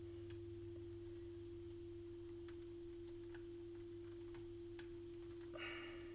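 A steady mid-pitched tone with a low hum beneath it runs throughout. Over it come a few faint, scattered clicks of component leads and tools against a circuit board.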